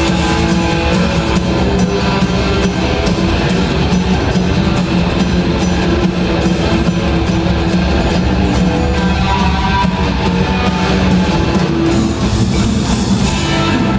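Live rock band playing loudly: electric guitars and bass guitar over a drum kit, with an acoustic guitar on stage.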